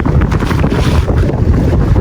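Strong wind buffeting the microphone, a loud, unbroken low rumble.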